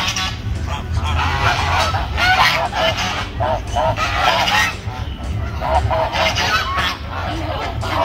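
A flock of domestic geese honking, many short calls overlapping one another.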